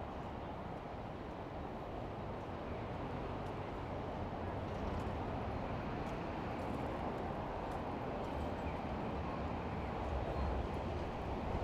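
City street ambience heard from a moving bicycle: a steady wash of traffic and road noise with faint scattered ticks, and a low rumble swelling louder near the end.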